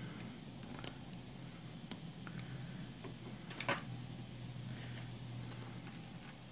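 Kapton tape being handled and pressed around a temperature probe on a soldering iron: light crinkles and scattered small clicks, the sharpest about three and a half seconds in, over a faint steady low hum.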